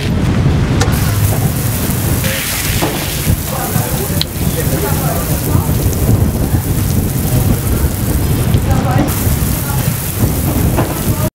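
Outdoor beach shower running, water spraying and splashing steadily, over a heavy low rumble.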